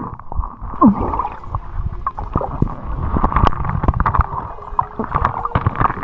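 Muffled underwater sound: gurgling water with many scattered clicks and knocks, and a short falling sweep about a second in.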